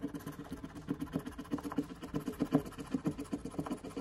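A coin scratching the coating off a scratch-off lottery ticket in quick, repeated back-and-forth strokes.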